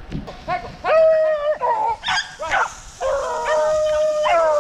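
Rabbit-hunting dogs baying as they run a rabbit's trail: a few short yelps and long, held bawls, the longest lasting over a second near the end.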